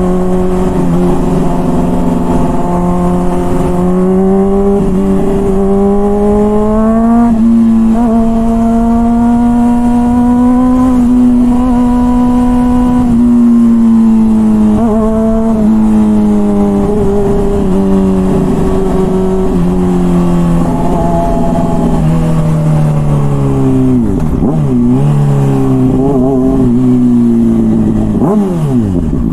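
Honda CBR600RR's inline-four engine running through a loud, deep-sounding aftermarket Toce exhaust while riding. The engine note climbs and eases off in long sweeps with a few brief breaks, then drops sharply as the throttle closes near the end.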